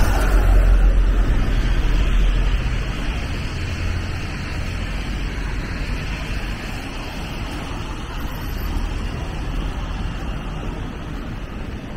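Street traffic on wet roads: a vehicle passes close, its low rumble loudest in the first couple of seconds and then fading into a steady hiss of tyres and passing traffic.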